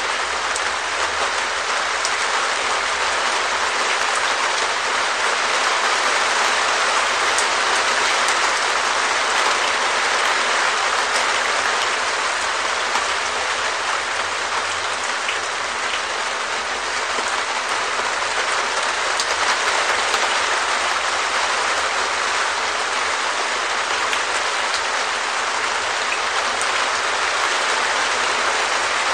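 Rain falling on a perspex shed roof: a steady, dense patter of drops on the plastic sheet, with now and then a sharper single drop standing out.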